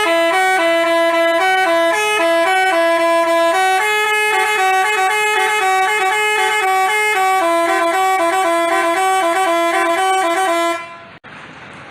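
Basuri telolet multi-tone bus horn playing a quick melody of stepped notes. It cuts off about a second before the end.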